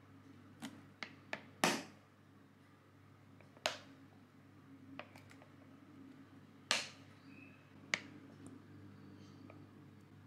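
Thin plastic water bottle crackling and popping as a hand squeezes and releases it to use it as an egg-yolk separator. A quick run of sharp clicks in the first two seconds, then single pops about three and a half, seven and eight seconds in.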